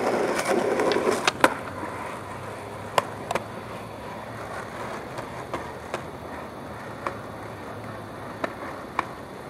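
Skateboard wheels rolling over rough pavement, loudest for the first second and a half. After that the rolling is quieter, with sharp clacks from the board about every second.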